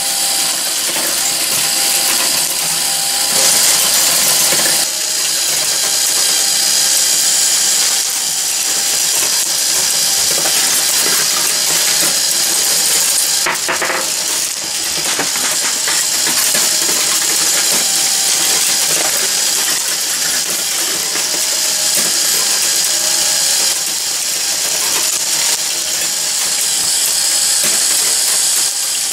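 Meccano marble machine running: glass marbles clicking and rattling against its metal strips, wheels and ramps over a steady mechanical whir, a continuous dense clatter.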